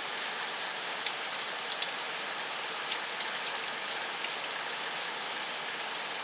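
Heavy rain falling steadily in a thunderstorm, an even hiss with many individual drops ticking close by.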